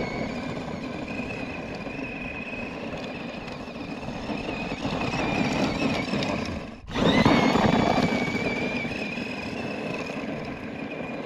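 1/10-scale vintage Tamiya monster truck with an 18-turn Speedworks 350 brushed electric motor, running over gravel: a steady high motor-and-gear whine over the noise of tyres on loose stones. A little past halfway the sound cuts out for a moment, then the whine rises again as the truck accelerates.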